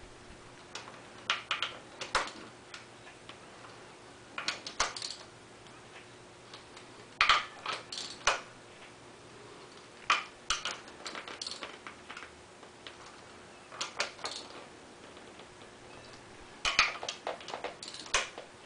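Hand ratchet clicking in short bursts, a few clicks at a time with pauses between, as a bolt on the thermostat housing is tightened down.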